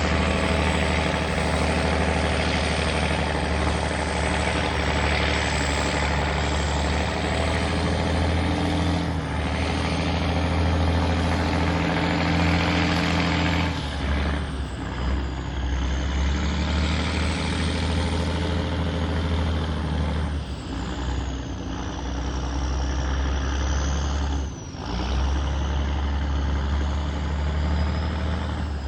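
Heavy diesel engine of a river tugboat running steadily at working power while it tows a pontoon boat, with a high whine wavering in pitch above it. The engine note shifts about halfway through and dips briefly near the end.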